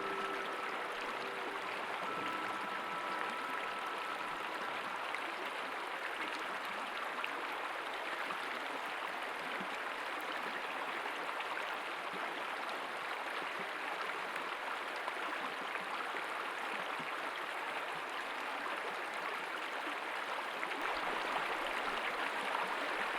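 Steady outdoor rushing noise, even and unbroken, with a few held musical tones fading out in the first few seconds.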